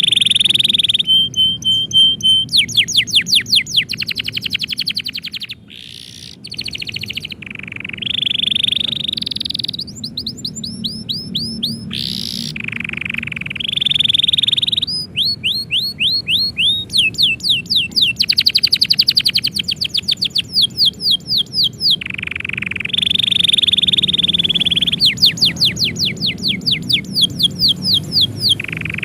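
Domestic canary singing a long, continuous song: fast trills of repeated falling notes, about ten a second, alternating with held whistled notes.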